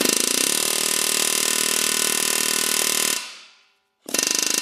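Pneumatic air hammer rattling against a stripped hex-head bolt on an Audi AAN engine, cutting a notch to drive the bolt counterclockwise. It runs for about three seconds and fades away, then a second burst starts near the end.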